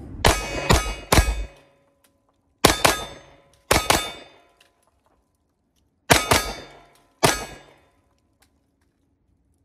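CZ P01 9mm compact pistol firing seven shots: three in quick succession about half a second apart, then two pairs about a second apart. Each shot has a short ringing tail.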